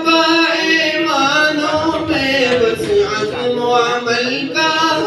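A man singing an Urdu tarana solo and unaccompanied into a microphone, drawing out long, slowly wavering held notes.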